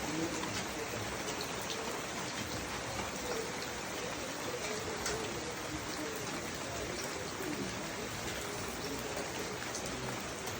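Steady rainfall pattering on surfaces, with scattered individual drops ticking.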